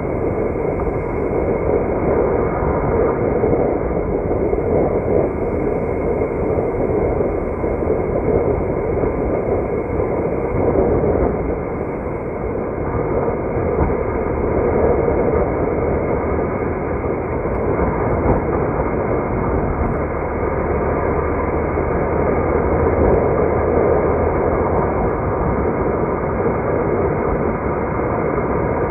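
Steady road noise of a car being driven: tyre and engine noise holding an even level, with no distinct events.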